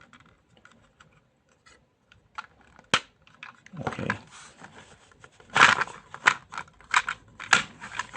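Small plastic toy pieces being handled and fitted onto a plastic playset: faint scattered ticks at first, a sharp click about three seconds in, then rustling scrapes and a run of louder clicks in the second half.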